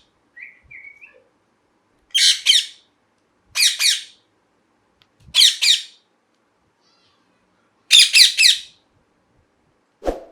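Ringneck parakeet giving four loud, harsh screeching calls spaced about a second and a half apart, each a quick run of two or three notes. A soft short whistle comes near the start and a sharp knock near the end.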